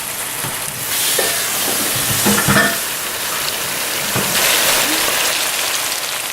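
Chicken drumsticks sizzling in a frying pan of sautéed spice paste, the sizzle swelling about a second in, with a brief knock and scrape of a utensil or the pan around two and a half seconds in.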